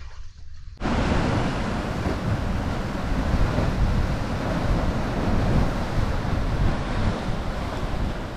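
Wind buffeting the microphone over the rush of ocean surf, a steady loud noise with a heavy low rumble that starts abruptly about a second in.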